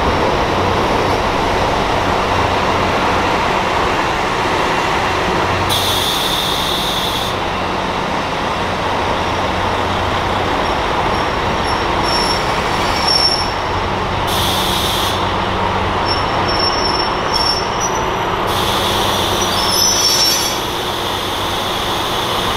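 KiHa 183 series diesel limited express train rolling slowly into a station, diesel engines humming under steady wheel rumble. Three short high-pitched hissing squeals come about 6, 14 and 19 seconds in as it slows.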